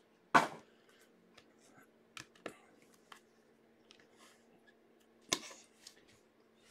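A stack of trading cards being handled, squared and set down on a table: a scatter of light taps and clicks, with a louder tap about five seconds in.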